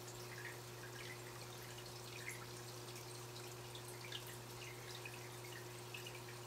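Faint aquarium water sounds: small, irregular drips and plinks at the water's surface over a steady low hum.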